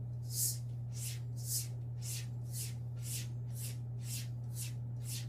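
Gold Dollar straight razor being stropped on an English bridle leather strop: the blade makes an even, brief swish on each pass, about two passes a second, over a steady low hum.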